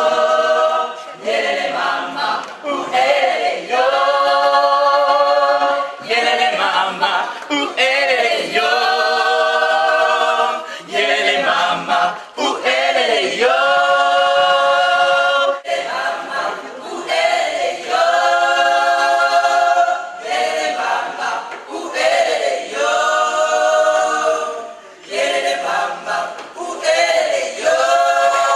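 Gospel choir singing a cappella, several voices in harmony with no instruments. The singing comes in phrases of about two to four seconds with short breaks between them.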